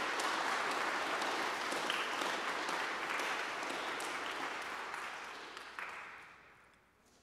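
A congregation of schoolchildren applauding, with the clapping fading away over the last second or two.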